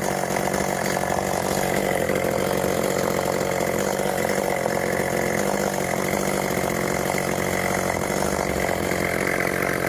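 Chainsaw running at steady high speed, cutting through an oak during the back cut.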